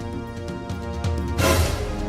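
Background music with sustained tones and a steady bass, broken about one and a half seconds in by a short, loud rushing noise burst.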